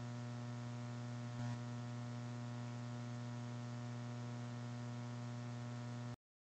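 Steady electrical mains hum with a buzzy ladder of overtones, unchanging until it cuts off suddenly near the end.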